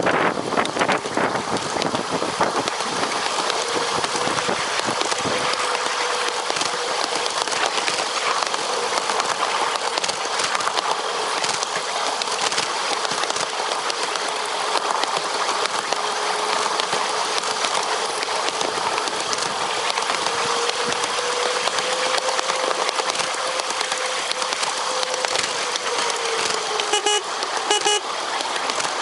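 Fairmont rail speeder running along the track at speed: a dense, steady rattle of its steel wheels on the rails and its motor, with a faint whine that rises and falls. A quick run of ticks comes near the end.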